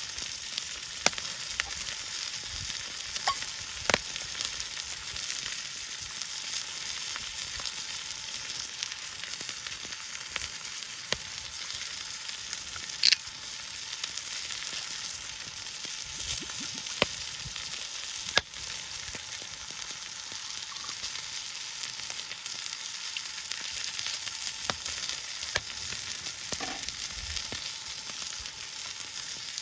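Food frying: a steady sizzling hiss with scattered sharp pops, one louder pop about 13 seconds in.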